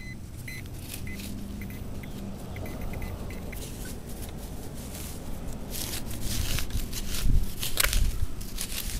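A hand digging tool cutting and prying a plug of grassy soil: crunching, scraping strokes through dirt and roots. The strokes grow loudest in the last few seconds, with two sharp jabs near the end.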